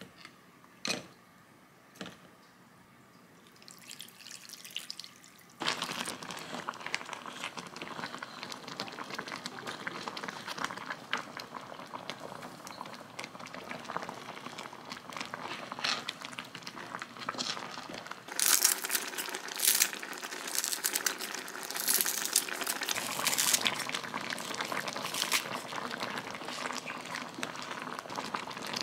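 Spicy crab-and-scallop stew boiling in a frying pan. After a couple of light knocks at the start, a steady bubbling and sizzling sets in about six seconds in. It grows louder, with sharper crackles and splashes, from about eighteen seconds in.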